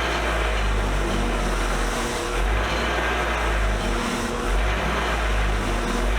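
A motor-driven wire wheel running steadily while vise parts are held against it, the wire brushing old paint and grime off the metal. A constant low hum with a steady hiss, swelling slightly now and then as the part is pressed in.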